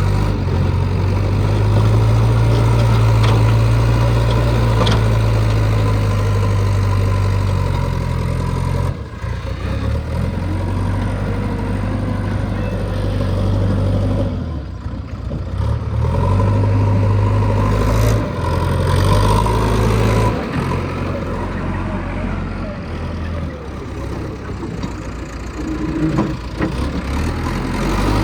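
Heavy diesel engines of earth-moving equipment running, the engine note stepping up and down every few seconds as the load changes, with short drops about nine and fifteen seconds in.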